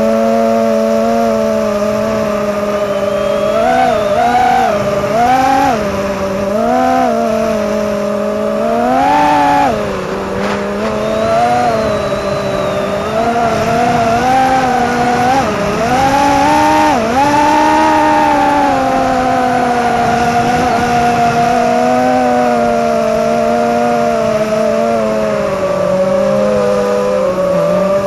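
FPV racing quadcopter's motors and propellers whining, the pitch jumping up in short throttle punches several times and falling back to a steady hover tone.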